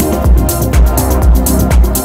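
Electronic dance music from a DJ set, with a steady four-on-the-floor kick drum about two beats a second and hi-hats between the kicks.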